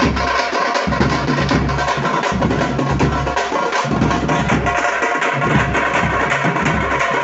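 Tamte frame drums played by a group in a dense, fast rhythm of sharp strokes over deep, thudding bass beats.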